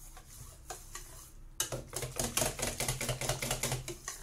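Wire whisk beating crêpe batter in a stainless steel bowl, working in freshly added flour: the wires tap and scrape against the metal bowl in rapid clicks, starting about a second and a half in.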